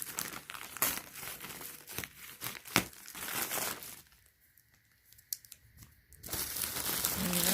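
Packaging crinkling and rustling as it is handled and pulled open by hand, with a lull of about two seconds after the middle before the rustling resumes.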